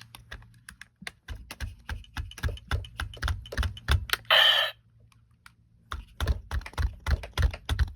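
Toy electronic drumsticks being played: a rapid run of sharp drum hits, a brief crash-like sound about four seconds in, then another burst of quick hits.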